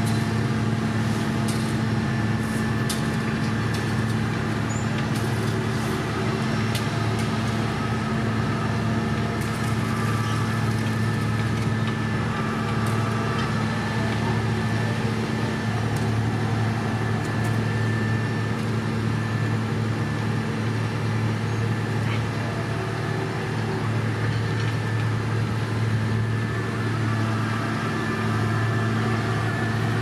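Heavy diesel road-construction machine engine running steadily at a constant speed, with scattered light clicks and knocks in the first half.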